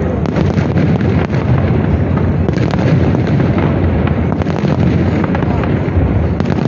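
Aerial fireworks bursting in a dense, unbroken barrage: many sharp cracks over a steady low rumble.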